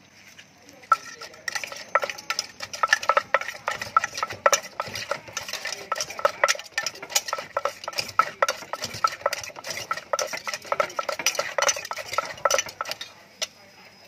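Wooden pestle pounding shredded green papaya in a clay mortar, starting about a second in and keeping up a quick, steady rhythm of about three knocks a second, while a metal utensil clinks and scrapes as it turns the salad.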